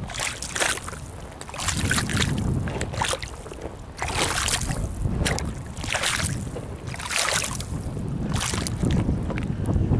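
River water splashing and lapping in repeated swishes about once a second, with wind rumbling on the microphone.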